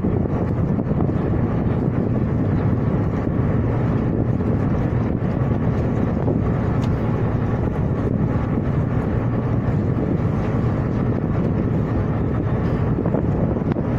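Steady low rumble aboard a ship under way: engine drone mixed with wind and sea noise, even throughout.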